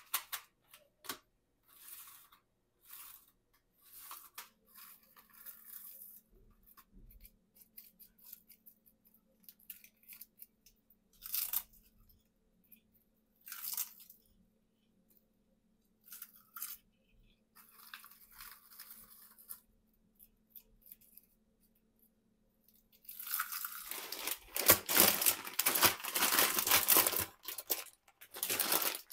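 Crisp roasted seaweed sheets and their plastic tray crunching and crackling in short, separate bursts. Near the end comes a louder, continuous crinkling of a plastic bag of pasta shells being handled.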